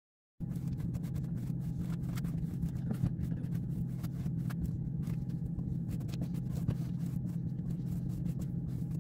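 A steady low mechanical hum, with many small scratchy clicks and rustles over it, starting about half a second in.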